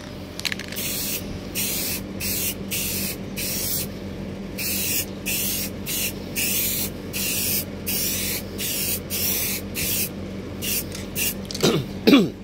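Aerosol spray can of clear gloss top coat hissing in short repeated bursts, about two a second, as it is sprayed onto stained wood. A brief squeak that slides up and down in pitch near the end is the loudest sound.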